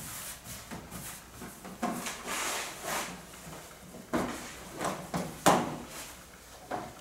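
Hands working dough on a floured steel worktable: irregular soft thumps, pats and rubbing, with the loudest thump about five and a half seconds in.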